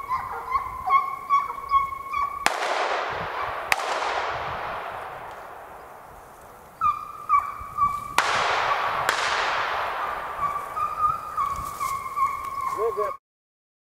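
A pack of Russian hounds baying in full cry on a hare's trail. Four shotgun shots cut through it: two about a second apart, then two more about five seconds later. Each shot fades away in a long echo.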